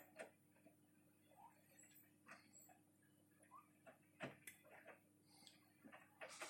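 Bosch Series 6 washing machine partway through a wash: faint irregular clicks and taps from the load turning in the drum, over a low steady hum, with a louder hiss near the end.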